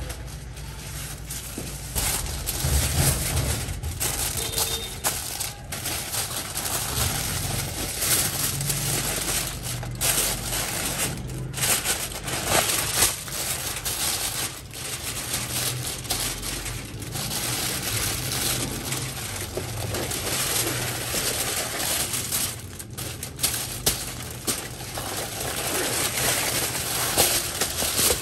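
Aluminium foil crinkling and crackling as hands fold and press it closed around a fish packed in coarse salt, a steady run of sharp rustles.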